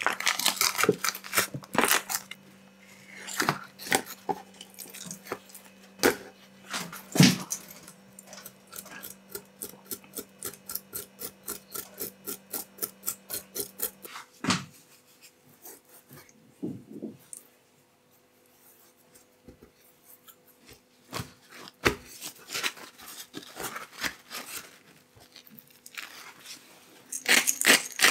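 Plastic vacuum packaging crinkling and tearing open, then a kitchen knife scraping scales off raw salmon skin on a wooden cutting board in a fast, even run of strokes. Near the end a hand pepper grinder starts grinding with a rasping sound.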